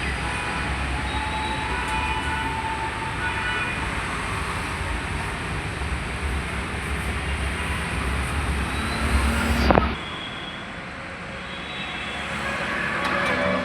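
Road traffic noise with a steady vehicle engine rumble and a few short horn beeps. The low rumble cuts off abruptly about ten seconds in, leaving quieter traffic noise.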